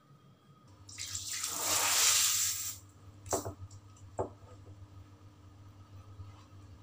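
Tap water under pressure hissing for about two seconds, building up and then cutting off, as it is turned onto a polypropylene pipe section closed with a homemade rubber plug. Two short knocks follow.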